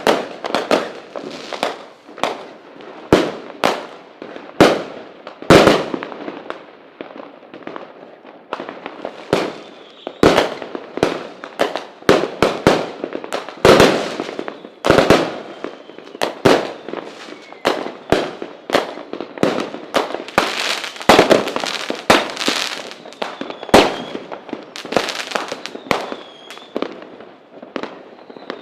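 Fireworks going off: a dense, irregular run of sharp bangs and crackles, some blasts overlapping and several much louder than the rest. Faint whistling tones sound through the last few seconds.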